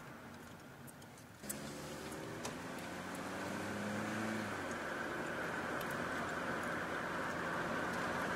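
Car engine and road noise heard from inside the car. The sound jumps up suddenly about a second and a half in, and the engine's pitch rises for a few seconds as it accelerates. It then settles into a steady driving noise.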